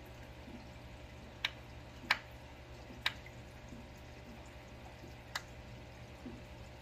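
Aquarium water trickling over a steady low pump hum, broken by four sharp clicks: three about a second apart, then one more a couple of seconds later.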